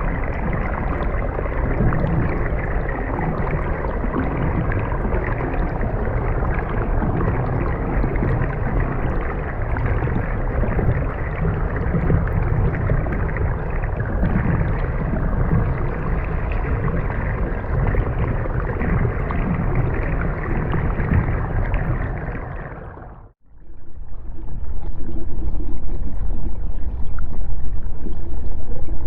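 Underwater ambience of a canal: a steady, muffled rush of water, heavy in the low end. It fades out about 23 seconds in, and a darker underwater sewer ambience, duller and louder in the low end, begins right after.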